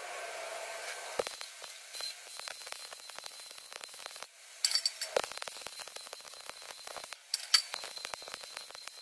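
Arc welding on steel: the steady crackle of the welding arc, broken by short pauses about four and seven seconds in, with a few sharper pops.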